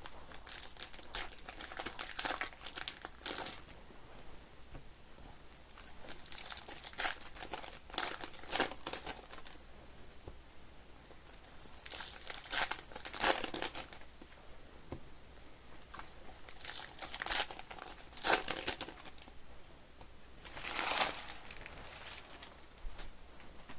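Baseball card pack wrappers crinkling and tearing as packs are handled and ripped open, in about five bursts a few seconds apart.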